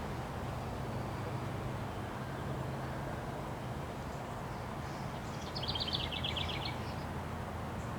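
Wind blowing steadily with a low rumble. About five and a half seconds in, a bird gives a rapid trill of about a dozen high notes lasting about a second.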